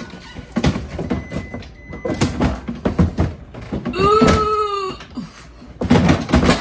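Fridge and freezer contents being handled: repeated knocks and clatters of containers and drawers being moved. About four seconds in there is a short pitched sound that rises and then falls.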